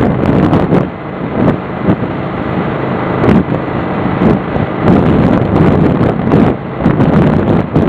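Wind buffeting the microphone of a camera on a moving motorcycle at road speed, coming in repeated gusts over the steady running of the motorcycle's engine.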